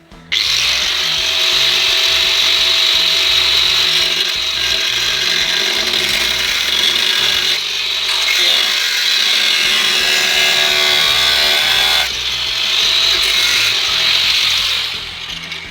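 Angle grinder running continuously against sheet steel, cutting through the car's battery tray panel along a marked line. It starts abruptly, dips briefly about twelve seconds in, and fades out near the end.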